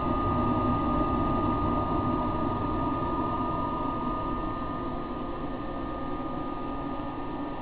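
Cooling blower of an Ameritron AL-82 valve linear amplifier running steadily, a hiss with a steady high whine and low hum, while its two 3-500Z tubes run hot at high plate current to getter them. It grows a little fainter in the second half.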